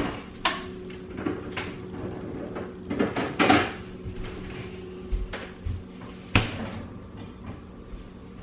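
Kitchen cupboard doors opening and closing, with several sharp knocks and clacks as the eggs and the olive oil bottle are fetched and set down; the loudest clack comes about six seconds in. A faint steady hum runs underneath.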